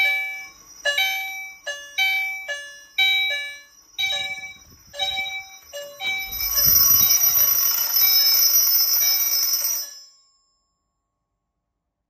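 Fire alarm chime (Faraday 5394) striking repeatedly in a steady rhythm, each stroke ringing out. About six seconds in, a continuous high-pitched electric alarm ringing takes over, then everything cuts off abruptly near ten seconds.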